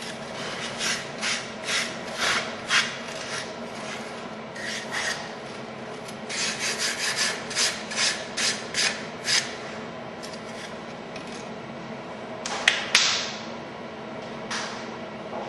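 REU1212 CNC router cutting, its cutter making short rasping passes about two or three a second over a steady machine hum, then easing off. Two sharp loud sounds come near the end.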